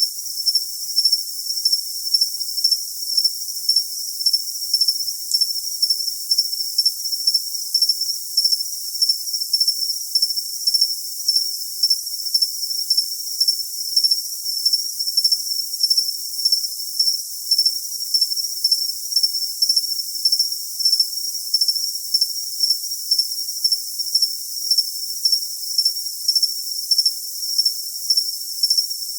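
Cricket chirping steadily: a high-pitched trill pulsing in short chirps, a little under two a second, over a faint high hiss.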